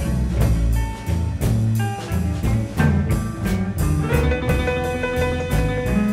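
Chicago blues band of electric guitars, piano, bass and drums playing an instrumental passage with a steady shuffle beat. A long held note enters about four seconds in.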